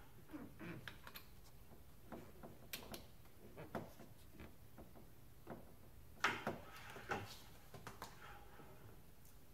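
Faint clicks and knocks of a brass coolant vacuum-fill tool and its hoses being handled and fitted onto a radiator filler neck, loudest a little past halfway.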